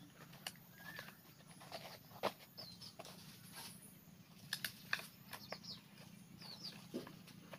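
Sharp clicks and knocks of split bamboo strips striking one another as they are handled and fitted into a frame, with a few short high chirps in the background and a steady low hum.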